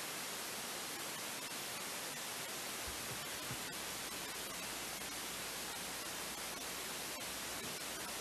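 Steady hiss of background noise, with scattered faint clicks and a faint low hum joining about three and a half seconds in.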